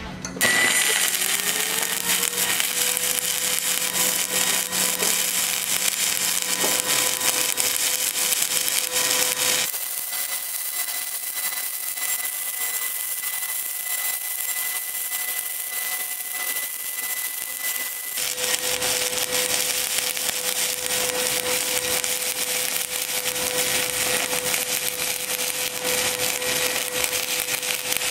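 Pulsed stick-welding arc from an HTP Inverarc 200 TLP running 7018 rod: a steady, loud crackle and sizzle, with a thin steady whine underneath. The crackle changes character abruptly twice, about a third and two thirds of the way through, as separate passes at different pulse frequencies follow one another.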